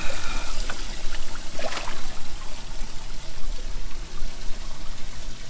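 Water pouring and trickling steadily in a bass boat's livewell as a largemouth bass is lifted out of it, with a couple of brief knocks in the first two seconds.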